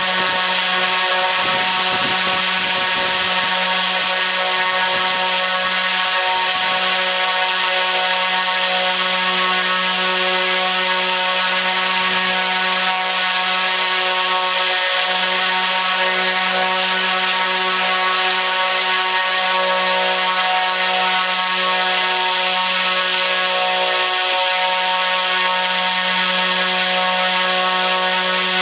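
T-Motor U13 100kV brushless motor spinning a 29-inch three-blade carbon-fibre propeller at full throttle: a loud, steady drone with a constant pitch and a rushing hiss of air.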